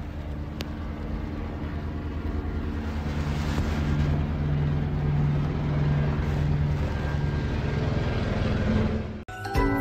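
Doberman growling low and continuously, the growl swelling a little in the middle, then cutting off shortly before the end.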